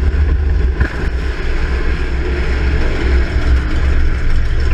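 Race car engine running hard at speed, a loud steady rumble with a heavy low end. It cuts off suddenly at the very end.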